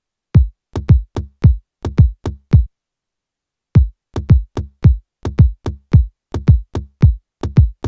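Electronic moombahton drum loop playing back in FL Studio: a syncopated run of deep kick-drum hits, each dropping in pitch. Playback stops for about a second not long after it begins, then the loop starts again.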